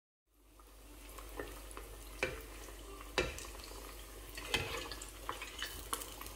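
A breaded rice arancino deep-frying in hot seed oil, sizzling steadily, with four sharp clicks about a second apart.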